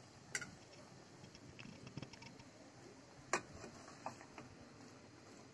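Faint clicks and light knocks of a wooden spatula against a metal pot as cubed vegetables are stirred, the two sharpest about a third of a second in and just past three seconds.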